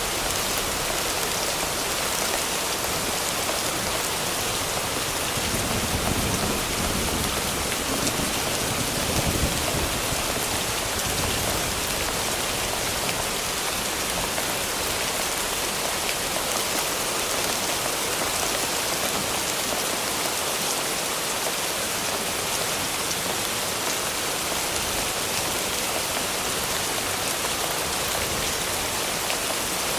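Steady rain falling in a thunderstorm ambience track, with a low rumble of thunder swelling about five seconds in and fading out over several seconds.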